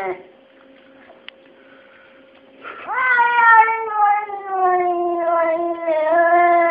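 Domestic cat's long, drawn-out yowl, wavering slowly in pitch. It starts about two and a half seconds in and is held for several seconds. Before it, an earlier yowl cuts off at the very start, and the lull between holds a faint steady hum and a single click.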